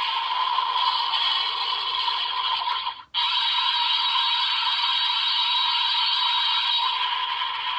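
Steady hissing electronic sound effect from a toy Ultraman Z medal transformation device's small speaker. It cuts out for an instant about three seconds in, resumes, and begins to fade near the end.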